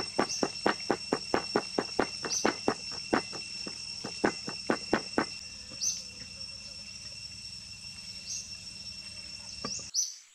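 Cleaver chopping garlic on a wooden board, quick even chops at roughly five a second that stop about five seconds in. A steady high insect trill runs underneath.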